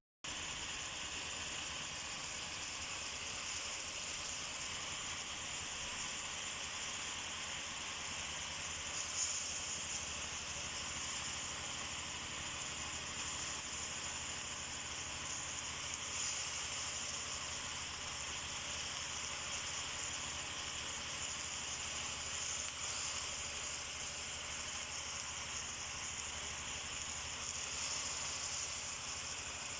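Food sizzling steadily as it stir-fries in a hot pan.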